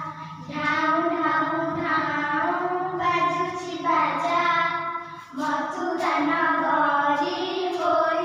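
A child's voice singing an Odia song in long, held notes, phrase after phrase, with a steady low accompaniment underneath.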